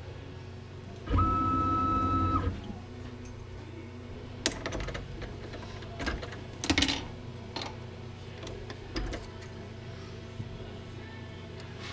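Benchtop mill's motor runs for about a second and a half with a steady whine, starting and stopping abruptly. It is followed by scattered sharp metallic clicks and knocks as the drill chuck is gripped and turned by hand.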